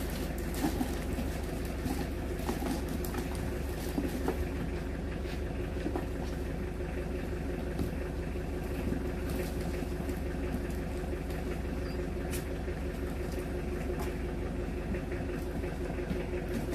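A steady low mechanical hum, like a motor running, with a few faint light clicks.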